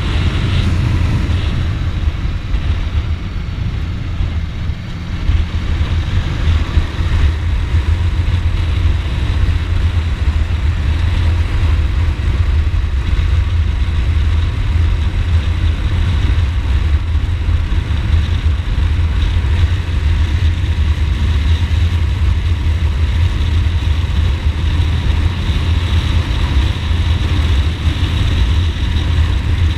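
Ducati Multistrada motorcycle engine running steadily while riding, with a brief easing off about three to five seconds in.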